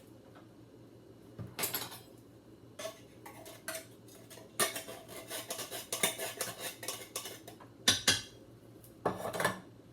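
Metal utensil clinking and scraping against tin cans, with a quick run of clinks in the middle, as tomato sauce is emptied into a crock pot.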